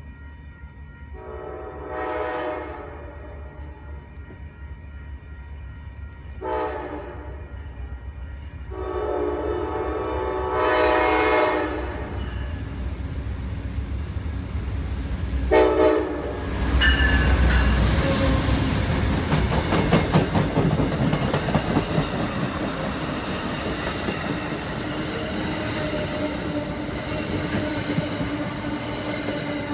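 Passenger train's multi-chime air horn sounding four blasts as it approaches, the third the longest, then the train passing close by with a low rumble and a fast, steady clicking of wheels over rail joints.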